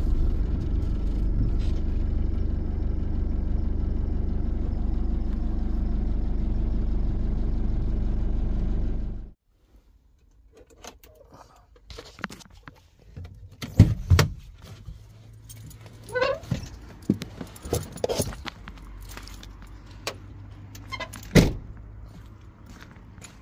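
Camper van engine idling steadily, then switched off and cutting out suddenly about nine seconds in. After that come scattered clicks, knocks and a jangle of keys in the cab.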